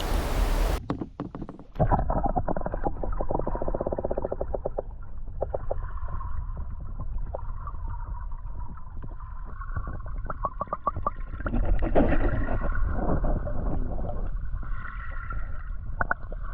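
Kayak being paddled through water: irregular splashing, gurgling and dripping of the paddle and water along the hull, over low wind rumble on the microphone. The sound is muffled, with the high end cut off about a second in.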